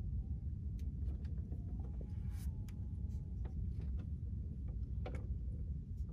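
Low, steady rumble of wind buffeting the microphone by open water, with scattered light clicks and a brief hiss about two and a half seconds in.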